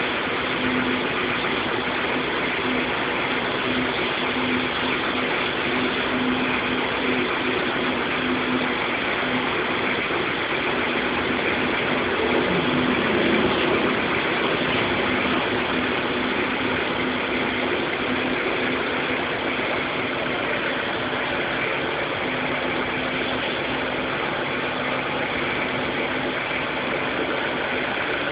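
Steady engine-like running hum with a constant low tone under a wash of noise, swelling briefly about halfway through.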